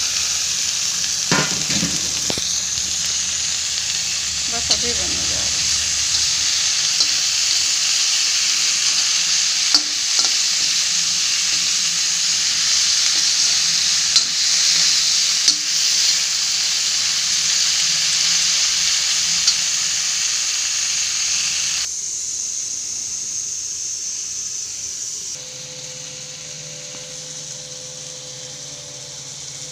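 Chopped okra frying in hot oil in a kadhai, a steady sizzle, stirred with a metal spatula that clicks against the pan now and then. About three quarters of the way through the sizzle cuts off suddenly, and a fainter steady hum follows.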